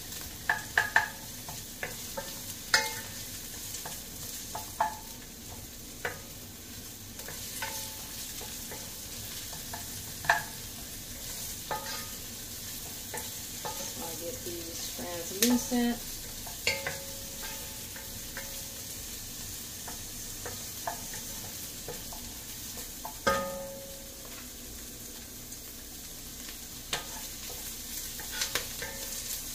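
Diced red onion sizzling as it sautés in a little grapeseed oil in a pot, stirred with a wooden spoon. The spoon scrapes and now and then knocks sharply against the pot, a few knocks ringing briefly.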